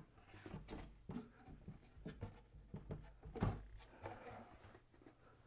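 Faint scraping and light clicks of a drawer's metal full-extension slide rails being worked against the cabinet-side slides, not yet engaging, with a few soft knocks of wood and metal, the loudest about three and a half seconds in.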